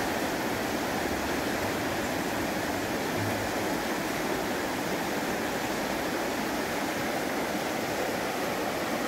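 A shallow mountain river running over rocks and cobbles in a riffle: a steady rush of water.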